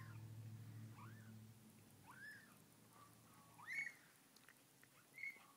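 Two-week-old snow Bengal kittens mewing: four short, high-pitched mews that rise and fall, over a low steady purr that stops about two-thirds of the way through.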